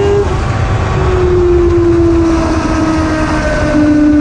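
A litre-class inline-four sportbike engine under way on track: its pitch climbs, breaks off about a quarter second in, then returns about a second in and slowly falls. Heavy wind rumble on the onboard camera runs under it.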